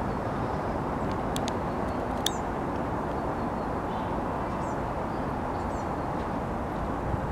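Steady outdoor background noise, a low even rumble with no clear pitch, with a few faint sharp clicks and a couple of faint short high chirps.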